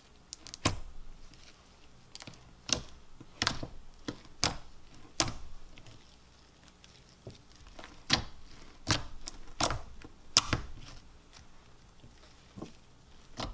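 Thick clear slime being stretched, folded and pressed by hand, giving off irregular sharp clicks and pops, some in quick pairs.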